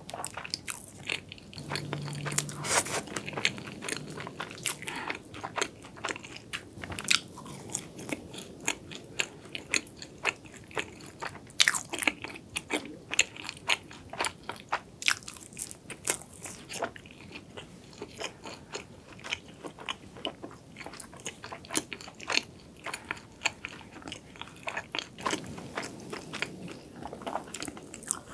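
A person biting and chewing a flaky cronut (croissant-doughnut) close to the microphone: many small crisp crunches and crackles of the layered pastry, coming irregularly throughout.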